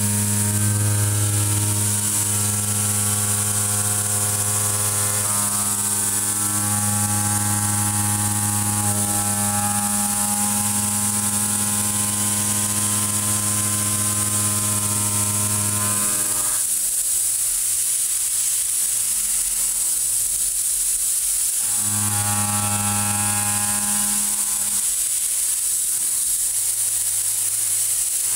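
Kennametal tangential shoulder mill roughing 4140 steel in a CNC machining centre: a steady humming cutting tone with several overtones over a constant high hiss. The tone drops away for about five seconds past the middle and again briefly near the end, leaving mostly the hiss.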